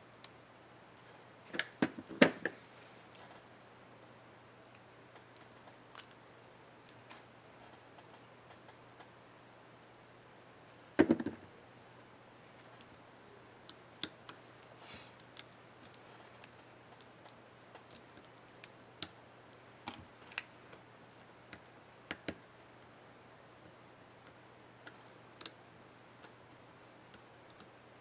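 Small plastic clicks and snaps as a laptop keycap's scissor retainer clip is handled and pressed into place in an HP Mini 5101 keyboard. There are two louder clusters of snaps, one about two seconds in and one near the middle, with scattered light ticks in between over a faint steady hum.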